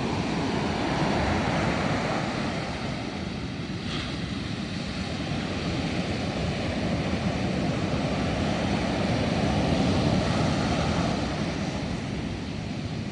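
Ocean surf breaking and washing up a beach: a continuous rushing roar that swells about a second in and again late on.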